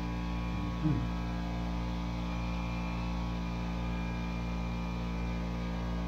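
Steady machine hum made of many steady tones with a faint even pulsing, with a brief vocal sound about a second in.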